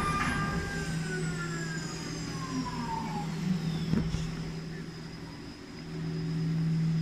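High-speed CNC milling spindle cutting a metal workpiece under coolant spray: a steady low hum with a high whine that falls in pitch over the first few seconds, and a sharp click about four seconds in.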